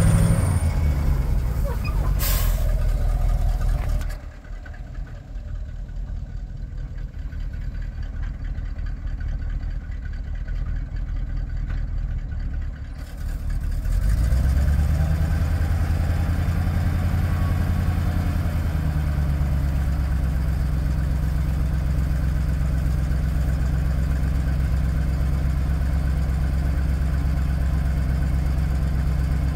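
1982 GMC C6500 grain truck's engine running steadily, with a sharp click about two seconds in. It drops quieter for several seconds, then about halfway through picks up to a louder, steady note and holds it while the hoist raises the grain box.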